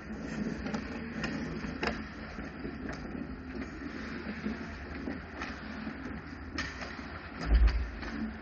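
Ice hockey game sounds: a steady low rumble and hiss with scattered sharp clicks of sticks and puck. A heavy low thump comes near the end.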